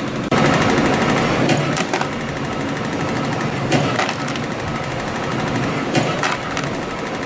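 CNC compression spring coiling machine running while forming 0.8 mm wire arc springs: a steady mechanical whir, with a burst of sharp clicks about every two seconds.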